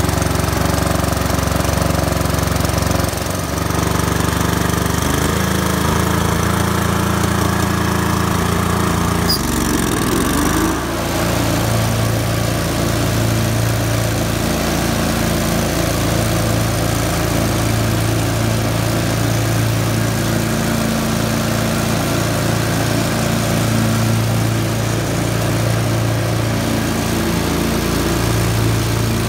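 Briggs & Stratton 24 hp Intek V-twin engine on a zero-turn mower running steadily as the mower drives. Its note shifts briefly about ten seconds in, then settles into a steady hum.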